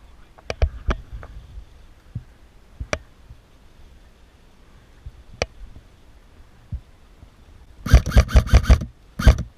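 Airsoft electric rifle firing in full-auto bursts: a rapid string of about eight sharp shots, then a shorter burst just before the end. Before that, only scattered single clicks and knocks.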